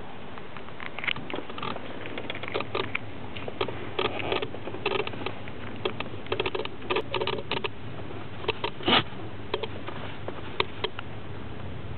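A car's main relay clicking rapidly and irregularly, in quick clusters of sharp clicks, the clicking that goes with the engine stalling.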